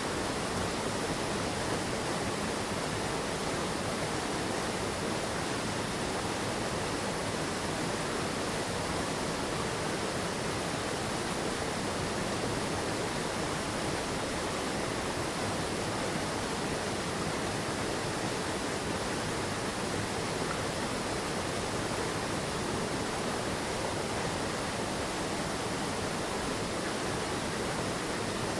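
Mountain stream water rushing steadily, an even unbroken wash of sound.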